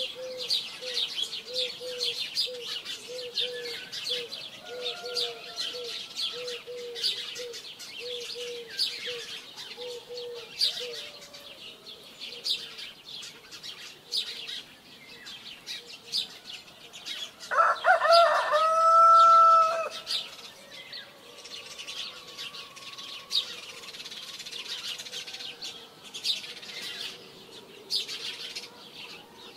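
Small birds chirping continuously. A low note repeats over and over for the first ten seconds or so, and a rooster crows once a little past the middle, the loudest sound.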